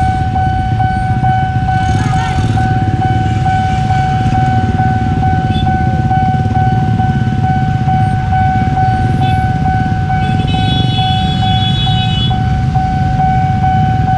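Railway level-crossing warning alarm sounding steadily, one high tone pulsing a few times a second, over the low rumble of waiting motorbikes and cars. A higher horn blows for about two seconds near the ten-second mark.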